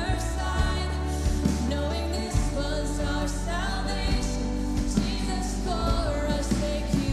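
A woman singing a worship song over a live band, with drum hits and sustained low notes beneath her voice.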